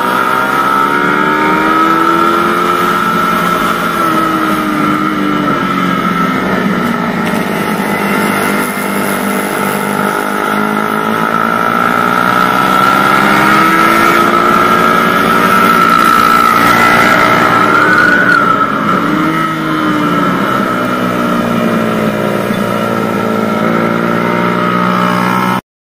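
Suzuki Satria FU 150's single-cylinder four-stroke engine, heard from on board the moving bike, its pitch rising and falling repeatedly as the rider works the throttle and gears, over wind and road noise. The sound cuts off suddenly just before the end.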